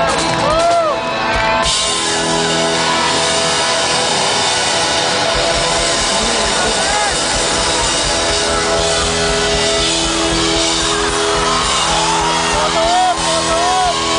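Live rock band playing loudly through an arena PA, heard from the audience, with held chords and high screams and whoops from the crowd over the music. A dense wash of cymbals and crowd noise comes in suddenly about two seconds in.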